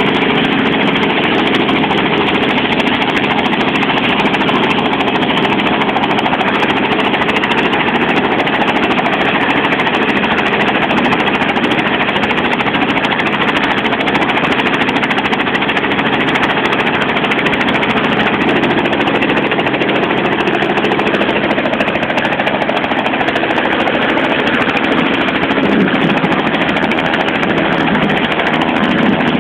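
Small helicopter's engine and two-bladed main rotor running loudly and steadily on the ground, with the sound shifting slightly near the end as it lifts off into a low hover.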